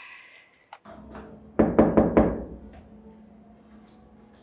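Knocking on a door: a quick run of about four knocks, each ringing out briefly, about a second and a half in.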